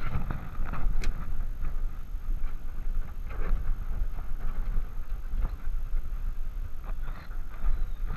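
Handling noise from a camera strapped to a moving dog's harness: a steady low rumble with irregular knocks and rustles as the harness shifts.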